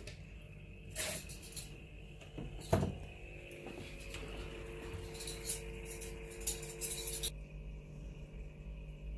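Hard glass-like clinks and knocks from handling at the aquarium: a few knocks in the first seconds, the sharpest about three seconds in, then a run of light rattling clinks that cuts off suddenly a couple of seconds before the end.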